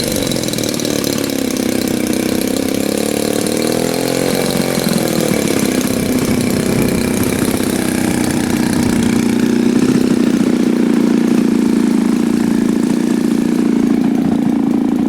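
The 50cc two-stroke gasoline engine of a large RC airplane idling on the ground after landing. Its pitch wavers up and down about four seconds in, then settles into a steady idle.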